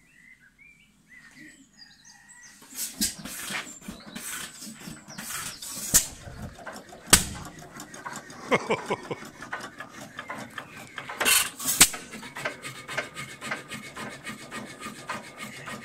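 Vintage stationary hit-and-miss engine running slowly. It fires only now and then, a sharp bang every few seconds at uneven gaps, and clatters steadily as it coasts between firings. This is hit-and-miss governing: the engine nearly stops and then fires.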